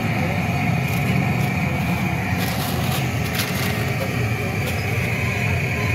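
Steady low rumble of a running engine or motor, with a steady high whine over it and a short run of clattering about halfway through.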